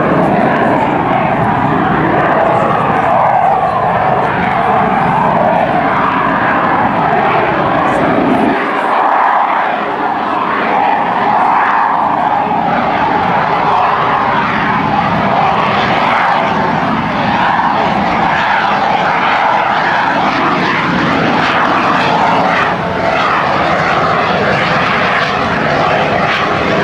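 F/A-18 Hornet's twin jet engines running loud and steady as the fighter flies past overhead, the deep rumble thinning out briefly about nine seconds in.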